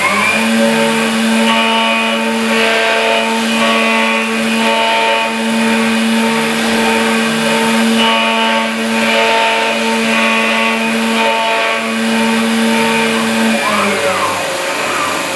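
CNC milling machine cutting an aluminium block: the spindle and axis drives run with a steady hum over cutting hiss. The steady tone breaks off near the end, with a short sliding tone, as the cutter lifts out of the work.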